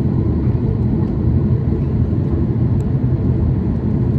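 Steady low rumble of an airliner in flight, heard inside the cabin: engine and airflow noise.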